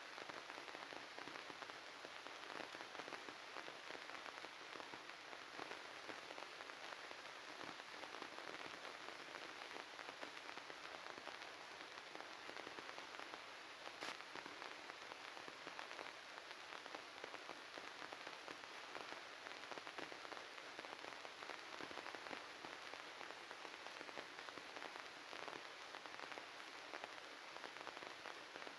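Faint, steady crackling hiss made of many tiny clicks, like static, with one sharper click about halfway through. It is typical of the glitched, bugged audio of a faulty recording.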